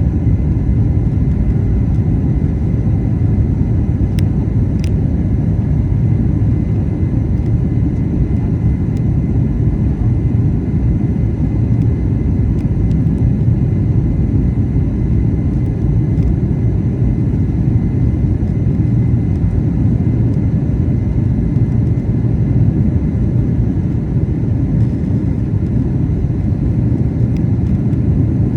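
Boeing 737 jet engines and rushing air making a steady low rumble under power during takeoff. Two faint clicks come about four seconds in.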